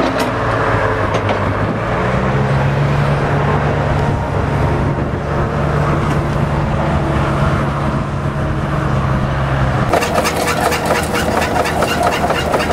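Engine of the machine digging the base trench, running steadily under load. It steps up in pitch about two seconds in, and changes abruptly near the end to a noisier, clattering sound.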